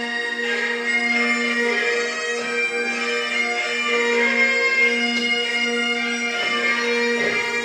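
Bagpipe music: a melody played over a steady drone that holds one low note throughout.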